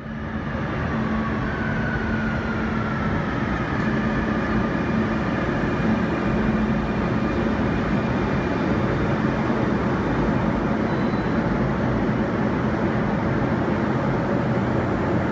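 Barcelona Metro train at an underground platform: a steady rumble with a low hum, and a faint whine that falls in pitch over the first few seconds.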